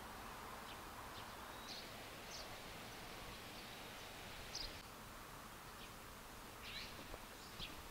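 Faint outdoor ambience: a steady low hiss with a few short, high-pitched bird chirps scattered through it.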